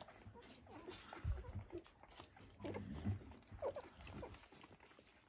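Eleven-day-old Dalmatian puppies making faint, short squeaks and grunts several times, with a couple of soft low bumps.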